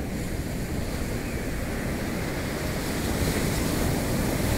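Sea surf washing onto a sandy beach, a steady rushing that swells a little about three seconds in, with wind rumbling on the microphone.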